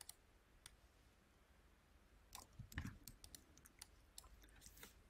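Faint, scattered clicks of computer input while text is selected and pasted in an editor. There is a single click under a second in, a loose run of clicks a little past halfway, and a few more near the end, with near silence between.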